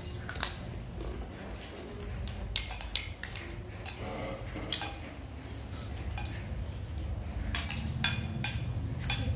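Spoons and plates clinking during a meal: scattered light clicks and clinks every second or so, a little busier near the end, over a steady low rumble.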